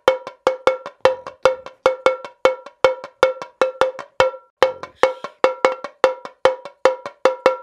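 Rhythmic bell-like percussion: short metallic strokes on a single pitch, about four or five a second, with a brief break about four and a half seconds in.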